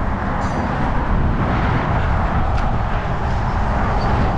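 Steady road-traffic noise from the adjacent highway bridge, with wind rumbling on the microphone.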